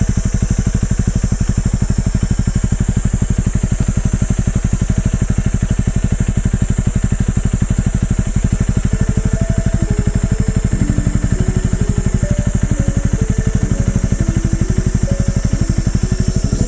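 Honda CRF250L's single-cylinder four-stroke engine idling steadily, its exhaust pulses even with no revving.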